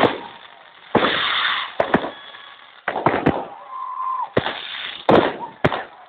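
Fireworks display: aerial shells bursting in a string of sharp bangs, roughly one a second, some trailing off in a drawn-out tail.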